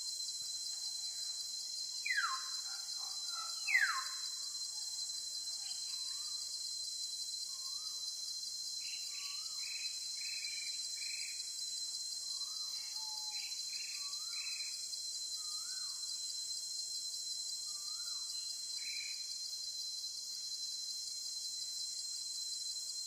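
Steady high-pitched insect chorus, with wild birds calling over it: two loud falling whistles about two seconds apart near the start, then a series of short chirps and calls.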